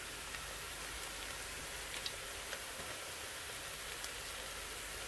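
Onions frying in oil in a metal pot: a steady sizzle with a few small pops.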